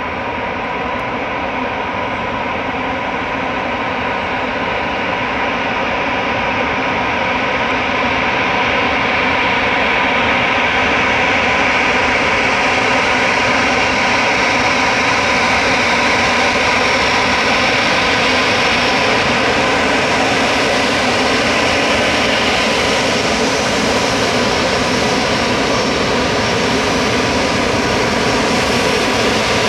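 Jet engines of an Airbus A319 running, a steady whine of several fan tones over a broad rush. The sound grows louder and brighter over the first ten seconds or so, then holds steady.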